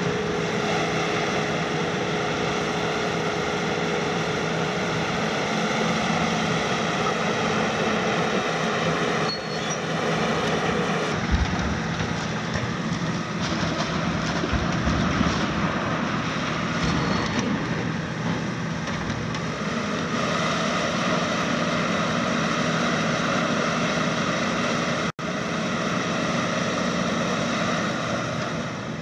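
The diesel engine of a 42-ton, 210 kW KMC 380 S long-front demolition excavator runs steadily under working load. Irregular knocks and crunches of demolition debris come in a few seconds past the middle, and the sound drops out for an instant near the end.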